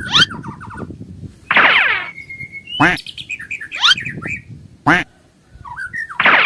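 Bird calls: a series of quick rising chirps about once a second, with two longer harsh squawks.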